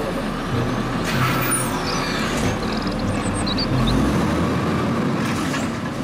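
Automated side-loading garbage truck running, its diesel engine rumbling steadily under mechanical and hydraulic noise as its arm grabs and lifts a wheeled trash cart. There is a brief hiss about a second in.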